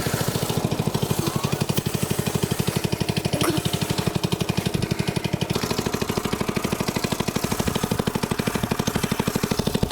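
Small go-kart engine running steadily at low speed, its firing strokes making an even, rapid pulse.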